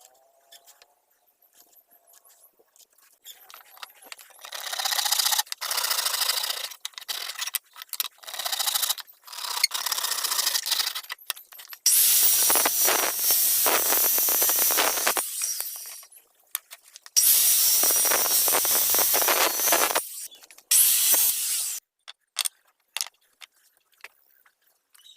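A tool working wood in several bursts, rubbing and scraping: a few short broken passes, then two longer, louder runs of several seconds each, and a few light knocks near the end.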